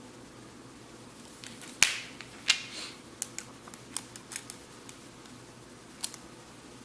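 A string of sharp plastic clicks and taps, the loudest two close together about two seconds in: hands handling the phone and fitting the plastic installation guide onto it.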